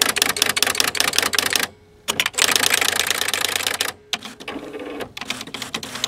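Packard Bell PB10TX electronic typewriter printing a line of characters at 10 characters per inch, with rapid, even clicking from the print mechanism. The clicking breaks off briefly about two seconds in, and is quieter in the last two seconds.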